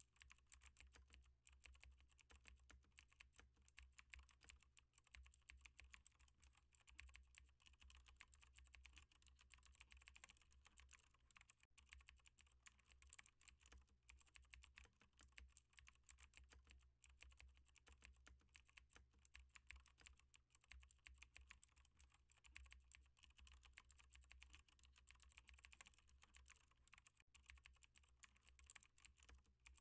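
Computer keyboard typing: a faint, continuous run of quick, uneven key clicks, over a low steady hum.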